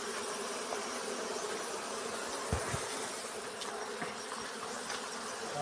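A swarm of honey bees buzzing steadily around an open hive, a dense continuous hum. A brief low knock about halfway through.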